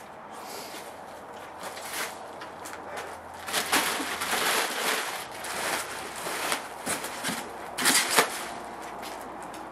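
Plastic packing bags crinkling and rustling as they are pulled out of a cardboard box, along with foam packing being handled. It is quiet for the first few seconds, then comes in irregular bursts, loudest about four seconds in and again about eight seconds in.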